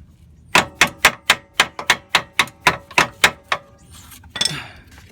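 A hammer tapping a steel suspension bolt on a BMW lower control arm to drive it out: about a dozen quick ringing metal-on-metal taps, roughly four a second, then a brief rasp near the end.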